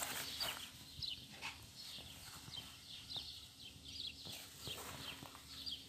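Faint small birds chirping in quick, short, repeated calls, with a few scattered soft clicks and a steady low hum underneath.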